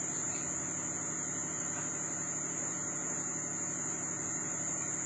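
Steady hum of running electrical equipment with a constant high-pitched whine, unchanging throughout.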